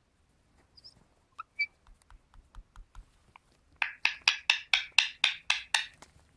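Indian ringneck parrot making faint clicks and soft chirps, then a rapid run of about a dozen short calls, around five a second, starting about halfway through.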